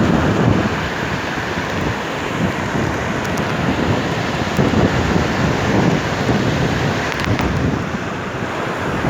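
Steady rush of wind on the microphone mixed with sea surf, fluctuating in level without a break.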